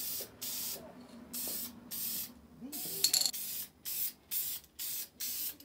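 Spray paint hissing from the nozzle in a quick series of short bursts, about two a second, with a brief sharp clink about three seconds in.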